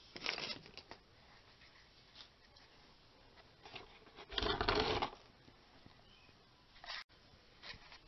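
Scattered brief rustling and handling noises, the loudest a rustle of about half a second roughly four and a half seconds in.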